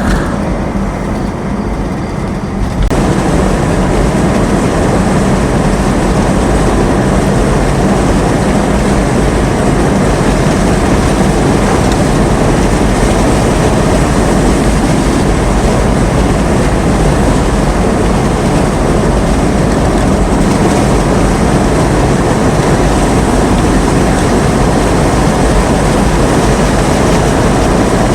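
Heavy rain and wind rushing against a moving vehicle, with road and engine hum underneath. The rush grows sharply louder about three seconds in and then holds steady.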